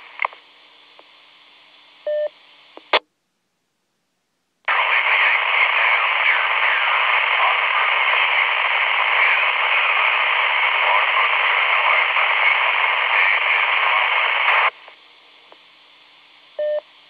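FM two-way radio receiving a repeater: a faint open carrier with a short courtesy beep, then a squelch tail burst as it drops out. After a short gap, about ten seconds of loud static hiss from a weak, noisy transmission, then the carrier again with another courtesy beep and a squelch burst at the end.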